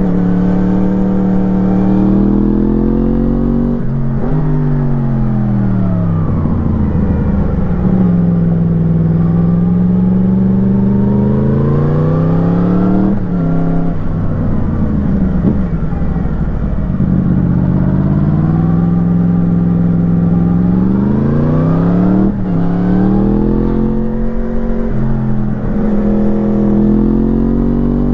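2017 Yamaha MT-10's crossplane inline-four breathing through an Akrapovič slip-on exhaust, accelerating and slowing repeatedly. The engine note climbs in pitch, falls away as it slows for corners, and picks up again several times, with sudden drops in pitch at about 4, 13 and 22 seconds.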